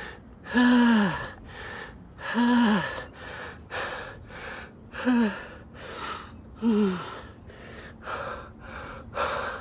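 A person breathing hard from exertion: rapid breaths about one a second, four of them voiced as gasping groans that fall in pitch, growing weaker toward the end.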